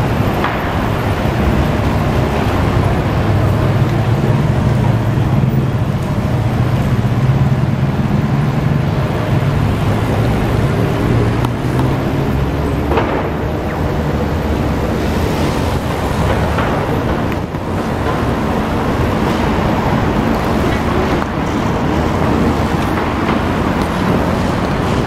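Busy city-intersection traffic noise: a steady mix of engines and tyres from passing and waiting cars and vans, with a deeper engine hum from a nearby vehicle strongest in the first ten seconds or so.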